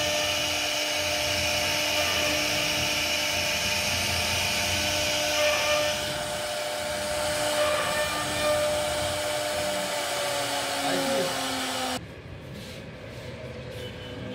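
CNC router spindle running and cutting into a wooden panel: a steady high whine over the noise of the bit chewing wood, its pitch sagging slightly near the end. It cuts off suddenly about twelve seconds in and gives way to quieter music.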